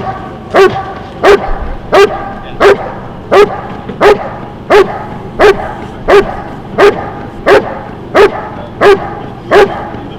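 Large German Shepherd barking in a steady, relentless rhythm, about fourteen deep barks evenly spaced roughly 0.7 seconds apart.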